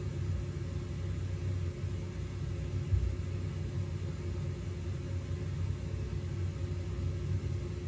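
Steady low-pitched rumble of a recorded test noise with a faint hum over it, and a brief louder thump about three seconds in.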